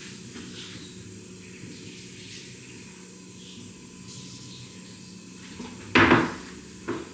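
Low steady room hum, then about six seconds in a loud thump as a cat jumps down from the kitchen counter onto a velvet bar stool with a metal base, followed by a smaller knock about a second later.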